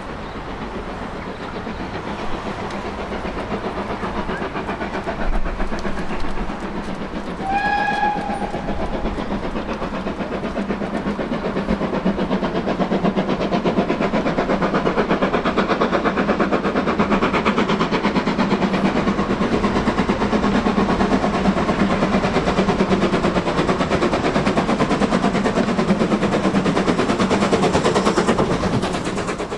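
Steam locomotive hauling its train through a station, a rapid rhythmic rattle of exhaust and wheels on rail growing louder as it draws close, then holding steady. One short whistle blast sounds about eight seconds in.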